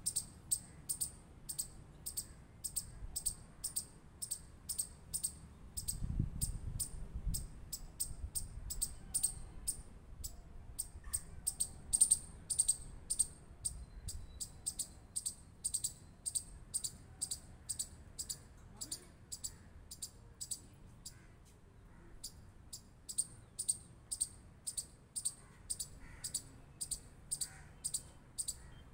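Chipmunk giving a long run of sharp, high chip calls, about two to three a second, pausing briefly in the later part and then resuming.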